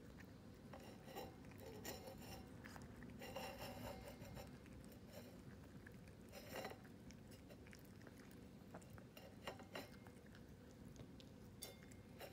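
A puppy chewing lychee from a stainless steel bowl: faint, irregular chewing and mouth sounds with occasional light clicks against the metal bowl.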